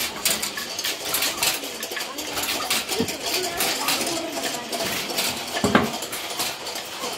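Wooden clacking and knocking of narrow-strip kente handlooms being worked: irregular sharp clicks, with one heavier knock about six seconds in.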